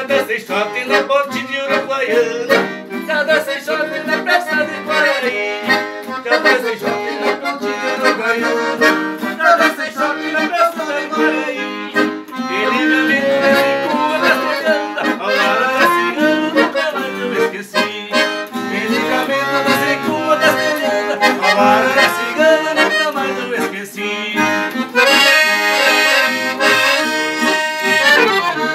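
Dolphin piano accordion playing a lively tune, a moving melody over chords.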